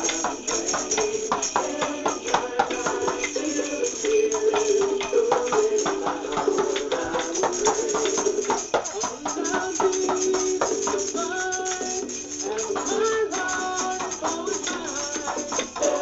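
A group of children playing hand percussion, shakers, small hand drums and a wooden block, in an uneven clatter of rattles and taps along with a song.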